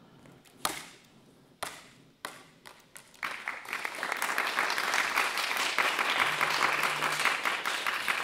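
A few sharp clacks in the first couple of seconds, then a small audience starts applauding about three seconds in, the clapping building and carrying on as the routine ends.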